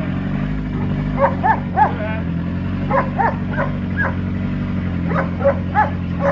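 A dog barking repeatedly, mostly in quick runs of about three barks, over the steady low drone of a car engine running.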